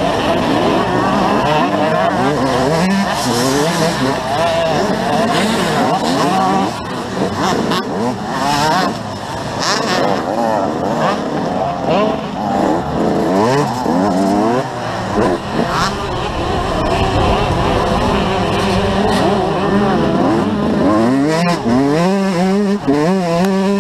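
Motocross bike engine heard from on board, revving hard and dropping back over and over as the rider accelerates, shifts and brakes around the track.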